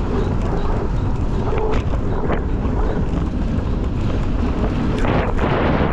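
Steady low rumble of wind buffeting the microphone, with a few faint clicks and rattles.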